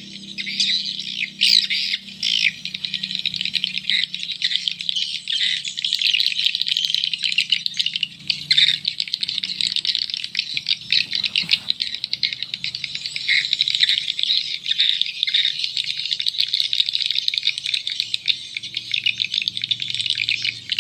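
Recorded edible-nest swiftlet calls played as a swiftlet-farming lure through small horn tweeters: a dense, continuous twittering with a low steady hum underneath.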